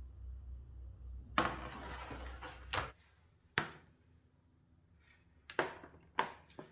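About a second and a half of scraping noise, then four sharp clinks of crockery and a knife being set down on a marble countertop.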